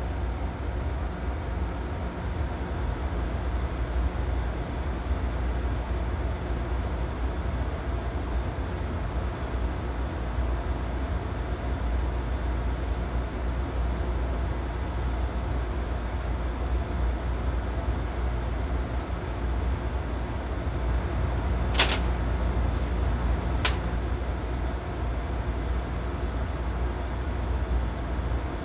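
Glass furnace burner running with a steady low rumble. Two sharp clicks come about two seconds apart, a little past two-thirds of the way through.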